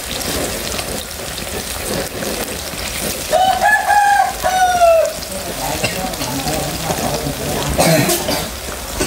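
Batter-coated banana pieces deep-frying in a wok of hot oil, a steady sizzle. About three seconds in, a rooster crows once, a call in two parts that falls at the end.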